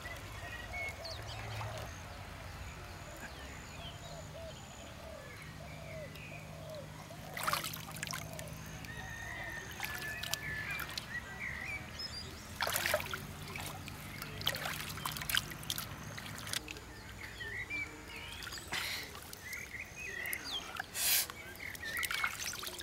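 Shallow muddy water sloshing and splashing as hands grope along the bottom, with a few sharper splashes scattered through. Birds call throughout.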